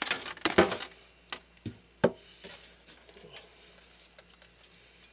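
Hands, a knife and vegetables handled on a kitchen cutting board: a quick cluster of knocks and rustling in the first second, then three sharp taps, then faint light handling.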